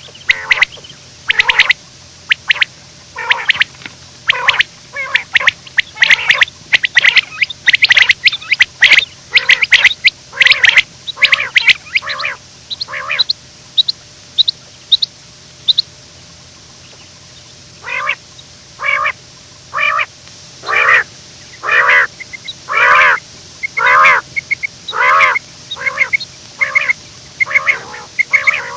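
Quail calling over and over: a fast, dense run of loud calls for about the first twelve seconds, then a few short, thin high notes, a pause of about two seconds, and evenly spaced calls about one a second to the end.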